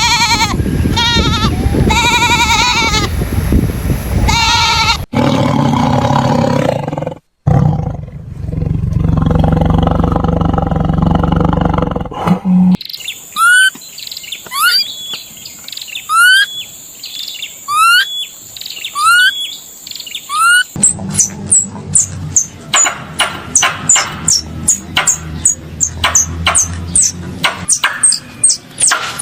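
A run of different animal calls: a wavering bleat-like call, then a low roar, then a rising chirp repeated about once a second, and near the end a fast series of short, sharp calls.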